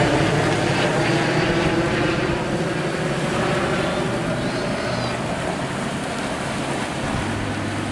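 Vintage piston-engine aircraft flying past, a steady engine drone that slowly gets quieter.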